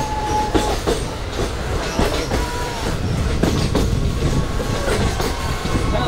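Passenger train running along the track, heard from the coach: a steady low rumble with frequent irregular clicks and knocks of the wheels on the rails, and brief thin wheel squeals, one dying out about half a second in and others around two and five seconds in.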